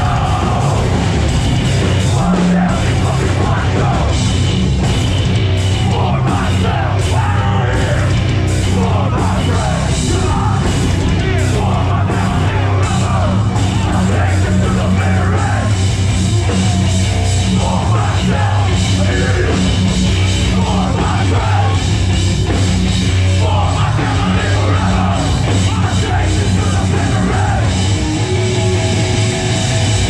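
A hardcore band playing live at full volume: a shouted lead vocal over distorted guitars, bass and drums, with no break.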